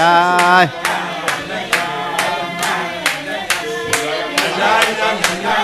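A group of men singing a wordless Hasidic niggun with rhythmic hand-clapping. A held sung note breaks off under a second in, and steady clapping in time, about two claps a second, carries on under the singing.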